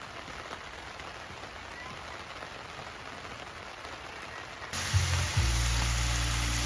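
A steady, even hiss of background noise. About five seconds in, a louder rushing noise with a steady low hum cuts in abruptly.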